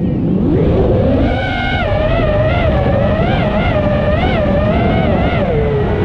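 An FPV freestyle quadcopter's brushless motors whining. The pitch climbs sharply as the throttle comes up, then keeps rising and falling as the pilot works the sticks, over heavy wind rumble on the onboard microphone.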